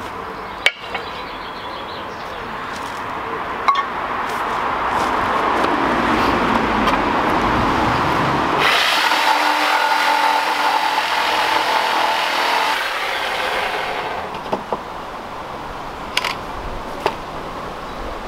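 Corded power saw cutting a notch into the top board of a wooden pallet: a steady cutting noise with a held tone, loudest for about four seconds in the middle, after a hissy noise swells before it. A few sharp clicks from handling the tool and wood.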